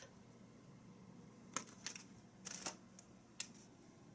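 A handful of short, light clicks and taps, about five spread over a couple of seconds, from items being handled, over quiet room tone.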